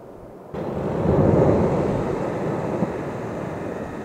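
Volcanic eruption rumble: a deep, noisy rumble that starts abruptly about half a second in, swells to a peak within the next second, then slowly eases off.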